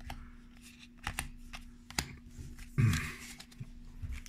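Yu-Gi-Oh! trading cards being flicked through by hand and laid down: light, scattered clicks and slaps of card stock, with a louder rustle about three seconds in as the cards are set down and a foil booster pack is picked up.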